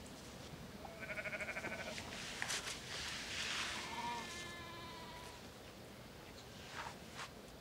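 Sheep or goat bleating twice: a quavering bleat about a second in and a smoother one around four seconds in, with a brief rustle and clicks between them.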